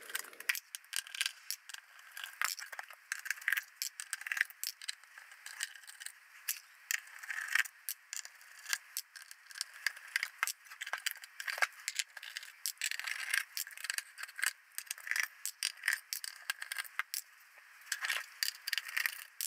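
Black sheet-metal case of an AlliedSignal GNS-X cockpit display unit being worked loose and slid off its internal chassis: a steady run of metal scrapes, clicks and rattles.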